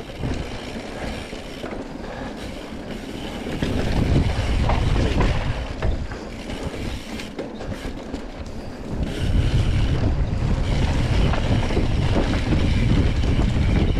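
Wind buffeting the camera microphone, with a mountain bike's tyres and drivetrain rattling over rough singletrack. The rush gets louder at about four seconds in, drops back, and swells again from about nine seconds in.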